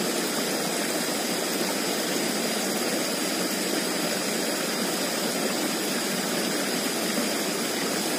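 Small stream rushing steadily, water spilling over a low cascade into the channel.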